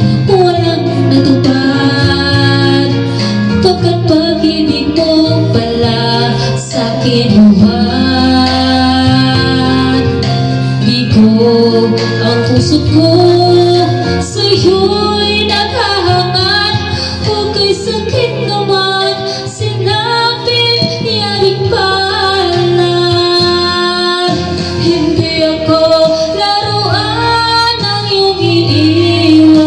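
A woman singing a Tagalog ballad into a handheld microphone over recorded instrumental backing music.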